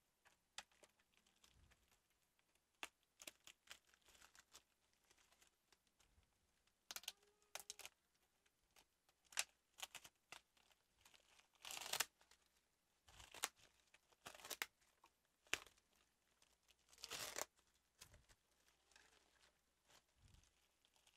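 Plastic packaging wrap crinkling and rustling in scattered short bursts as it is unwrapped by hand.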